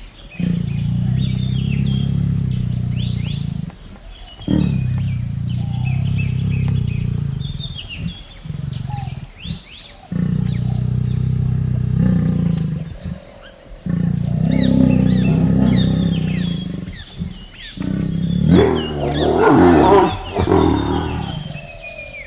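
A large animal growling in a series of low rumbling calls lasting a few seconds each, the last ones louder and harsher, with birds chirping in the background.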